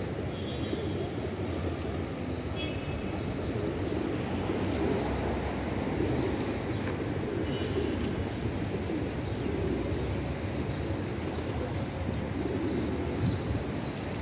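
A flock of feral rock pigeons cooing continuously while feeding, over a steady low rumble. A few short, high chirps from small birds come through near the start, in the middle and near the end.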